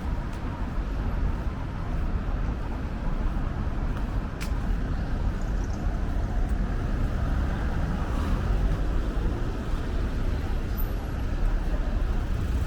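City street traffic: a steady rumble of cars running past, with one sharp click about four seconds in.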